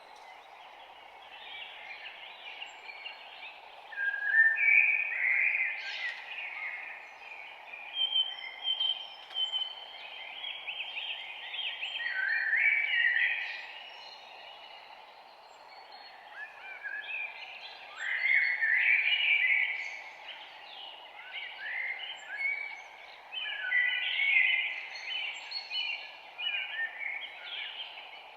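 A chorus of many songbirds chirping and trilling over one another, with a steady low hiss of background noise beneath.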